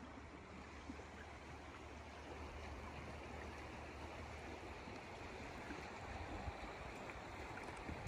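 Running stream water: a steady, even rush that grows slightly louder toward the end, with a low rumble underneath.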